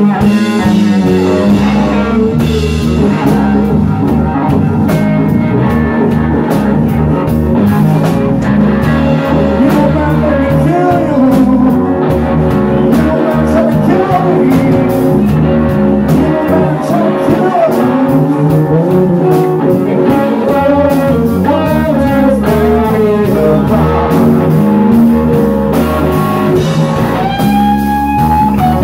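A live blues-rock trio playing a slow number: electric guitar leading with bending, sustained notes over bass guitar and drum kit.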